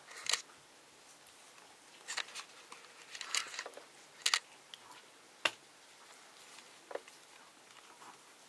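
Maltese puppies play-wrestling on a blanket: soft scuffling and rustling with several short, sharp clicks at irregular intervals.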